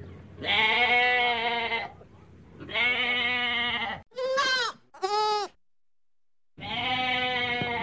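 Goat kids bleating: two long, wavering bleats, then two short bleats in quick succession. After a pause of about a second, another long bleat comes near the end.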